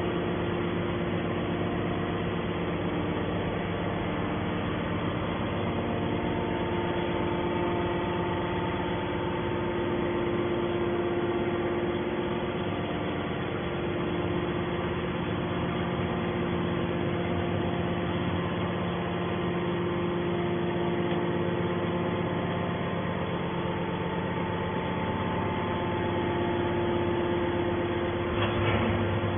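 Hydraulic scrap metal shear's power unit running steadily: an even machine hum with several steady tones and no cutting strokes.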